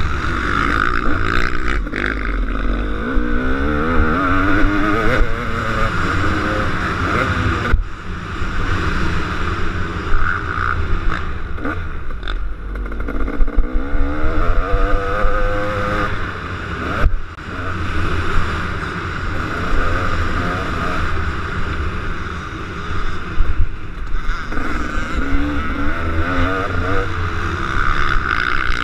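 Two-stroke KTM 250 SX motocross bike engine revving up and down over and over as it is ridden hard around the track, with a steady rushing noise and occasional knocks. The engine sound drops off sharply for a moment about eight seconds in and again about seventeen seconds in.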